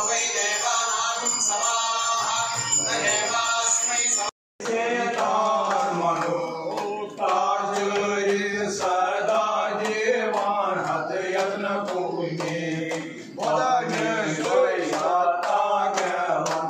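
Several male voices chanting Hindu mantras together, with many sharp ticks over the chant; the sound breaks off completely for a moment about four seconds in.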